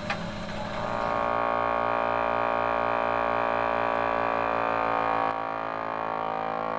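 Outro music: a sustained synthesizer chord that hits just at the start, holds steady, and eases off near the end.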